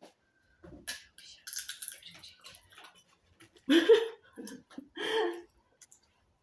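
Small crackly snacking sounds, light crunches and plastic-bag rustling, as a snack is eaten by hand. Two short vocal sounds without words follow about four and five seconds in; the first is the loudest.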